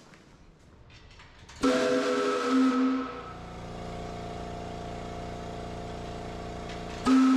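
Pole-mounted brass chime whistle blowing, several notes sounding together as one chord. It starts with a sudden loud blast, settles to a softer steady note for a few seconds, then blasts loud again near the end.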